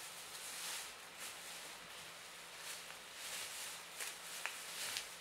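A thin plastic bag crinkling and rustling in irregular bursts as a kitten paws and wrestles with it, with a few sharp clicks in the last second or so.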